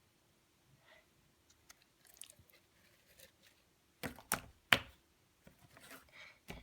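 Slime being poured out of its container and handled: faint sticky squelches and crackles, with three sharp, louder snaps or pops about four seconds in, the third the loudest.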